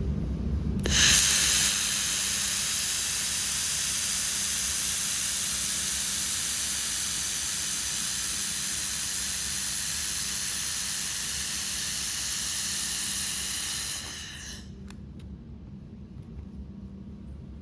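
Compressed air used as shielding gas hissing steadily from the nozzle of a handheld fiber laser welding gun while it welds. It starts about a second in and cuts off after about fourteen seconds, when the weld stops.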